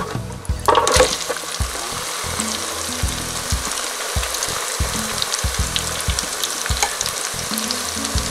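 Sweet potato and potato fries frying in a deep fryer's wire basket. A loud burst of bubbling comes just before a second in as the fries meet the hot oil, then a steady sizzle with many small crackles.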